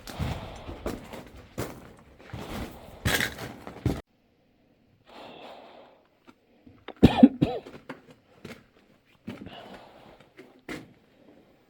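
A person breathing hard and coughing from exertion while climbing. The first few seconds hold scuffing and sharp knocks of climbing, which stop suddenly, followed by heavy breaths with a loud cough about seven seconds in.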